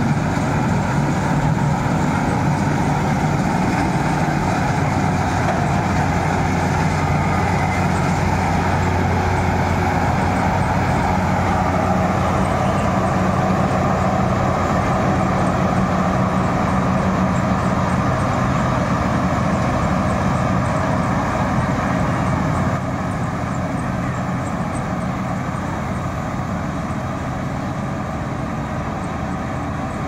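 Marksan K-BOS MS1200 tracked combine harvester running steadily while cutting rice, its engine and threshing machinery giving a continuous drone. It gets a little quieter about three-quarters of the way through.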